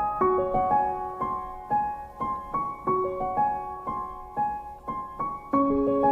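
Background music: a gentle solo piano piece of single notes struck in a steady rhythm, each note ringing and fading.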